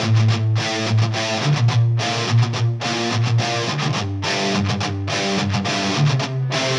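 Rock music with strummed, distorted electric guitar over a steady beat.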